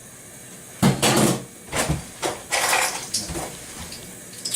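Kitchen handling noises: a few short rattling, rustling scrapes as condiment containers and utensils are picked up and handled.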